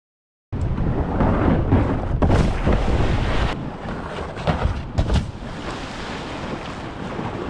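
Rushing river water and wind buffeting the camera microphone. A few sharp knocks and a splash come as a yellow plastic whitewater kayak seal-launches off a granite boulder into the river.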